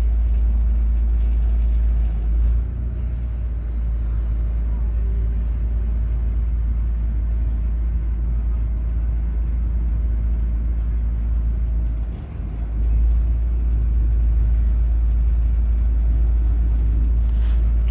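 A train's steady deep rumble, dipping briefly twice, about two and twelve seconds in.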